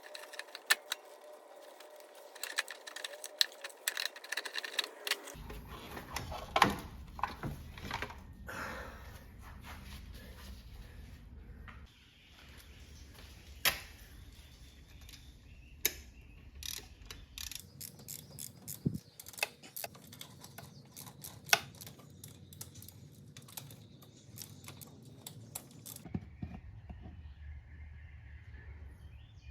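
Hand tools and metal engine parts clicking and clinking in a series of sharp, irregular knocks while the oil filter housing is worked on. The low background hum shifts abruptly several times between the strokes.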